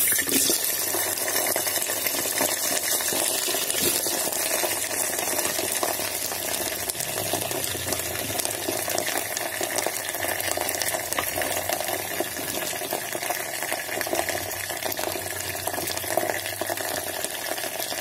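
Cut okra pieces frying in hot oil inside a stainless steel electric kettle: a steady sizzle.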